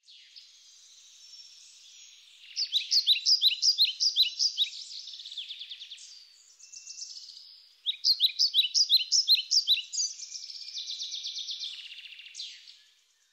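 A songbird singing: two long songs of quick, repeated chirping notes, the first starting a couple of seconds in and the second about eight seconds in, with softer notes between.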